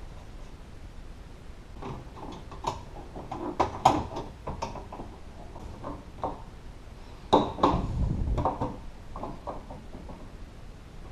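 Irregular plastic clicks and knocks of a white plastic part being handled and fitted into a car door's inner frame, with a louder clatter and dull thud about two-thirds of the way in.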